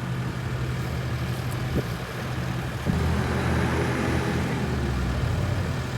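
A motor vehicle's engine running steadily as a low hum, growing louder about three seconds in.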